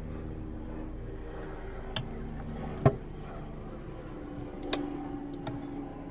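Overhead storage cabinet doors in a camper being handled, opened and shut: two sharp clicks about two and three seconds in, then a few lighter knocks, over a steady hum.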